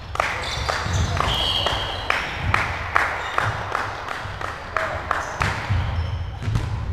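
Volleyball rally in a large sports hall: repeated sharp smacks and thuds of the ball being dug, set and hit, with players calling out, all echoing in the hall.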